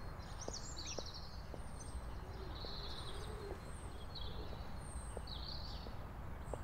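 Outdoor rural ambience: songbirds chirping in short, repeated trills over a steady low rumble, with a few faint, irregular knocks.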